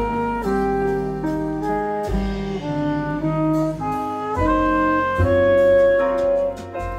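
Recorded instrumental music played back through PS Audio Aspen FR30 floor-standing loudspeakers: a melody of held notes over a bass line, swelling louder a little past the middle.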